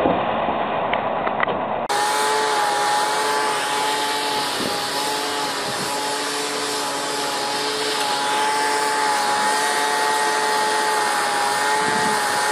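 A Tatra dump truck running in mud for about two seconds, then, after a sudden cut, a steady whine with a rushing-air hiss from the air inflation unit filling low-pressure lifting bags to right an overturned truck.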